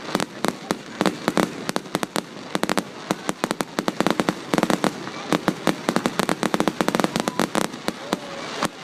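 Fireworks display in a dense, irregular barrage of bangs and crackles, several a second without a break.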